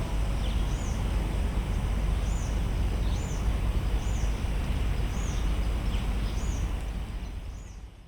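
A bird repeating a short high chirp about once a second over a steady low rumble of outdoor background noise, all fading out near the end.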